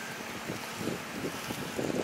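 2009 Dodge Ram 1500's 5.7-litre V8 running, an engine listed as running rough, with wind buffeting the microphone in uneven gusts.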